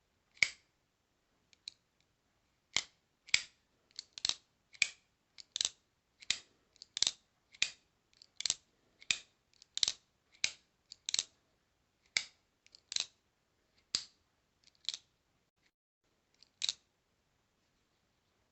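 Demko AD20.5 folding knife being worked open and shut over and over: a string of sharp metallic clicks from its Shark-Lock mechanism, about twenty in all, roughly one every half second to second.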